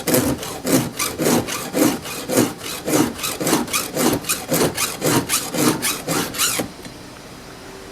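A hand file rasping back and forth across a chainsaw chain's cutter teeth in quick, even strokes, about three to four a second. The filing stops with about a second left.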